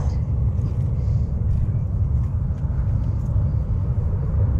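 Wind buffeting an open-air microphone: a steady, unsteady-edged low rumble with no engine tone in it, with a few faint ticks of handling.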